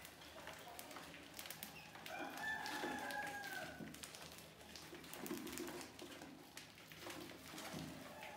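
A rooster crowing once, a long arching call about two seconds in, over faint scratchy clicks.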